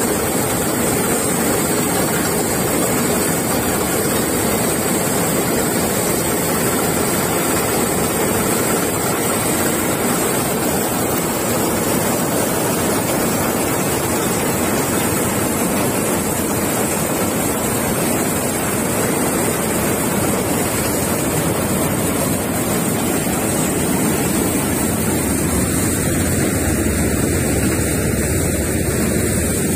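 Malkit combine harvester running steadily under load, its engine and threshing machinery making a loud, continuous dense noise as it threshes dry okra plants.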